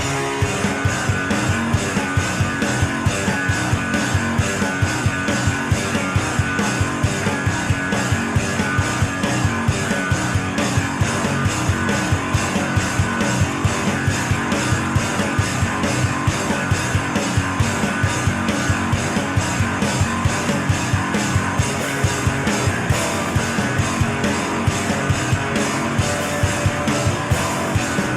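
Loud, dense rock-style music with guitar and a steady, driving beat.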